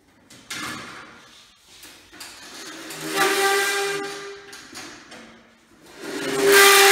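Power drill running, drilling into the ceiling: a short burst about half a second in, then two longer steady runs with a high motor whine, the last the loudest.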